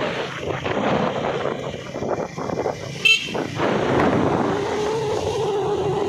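Motorcycle ride on a dusty town road: engine running with road and wind noise, a short horn beep about three seconds in, and a steady engine note from about four seconds on.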